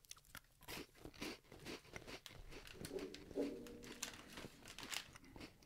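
Faint scattered crackles and clicks of a cheese cracker being chewed, with a short low tone about three seconds in.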